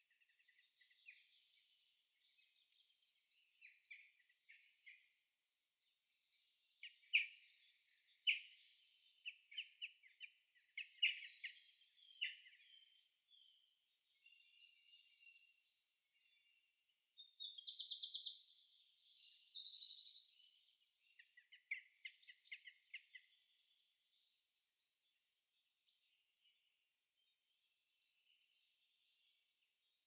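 Several small songbirds singing in woodland, with short repeated phrases of quick high notes and scattered sharp chips. One nearer bird sings a louder, denser song a little past halfway.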